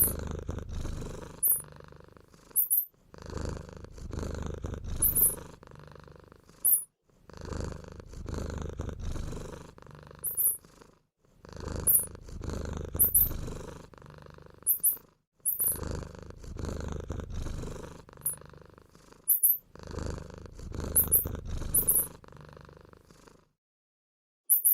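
A low purring rumble played as a loop that restarts about every four seconds, with short bursts of very high-pitched squeaks that are the loudest sounds.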